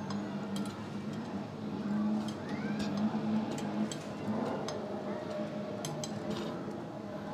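Wire whisk stirring a thick yogurt and boondi mixture in a glass bowl, its wires ticking and clinking against the glass at an uneven pace, over a steady low hum.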